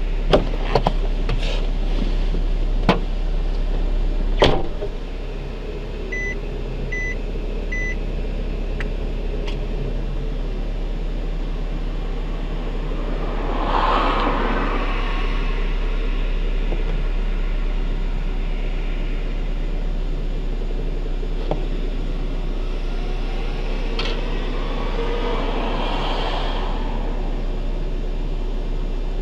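Suzuki Swift engine running steadily, with several sharp clicks and a heavier knock in the first few seconds, after which it sounds a little quieter. Three short beeps come about two seconds later, and the noise swells briefly twice.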